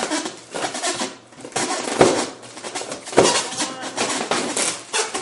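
Plastic packaging crinkling and rustling as wrapped parts are pulled out of a foam shipping box, with two sharp knocks about two and three seconds in.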